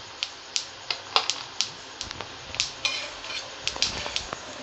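Kitchen utensils clinking and scraping against a pan and plate as the shallow-fried alu vadi pieces are lifted off and served, in a dozen or so irregular sharp clicks.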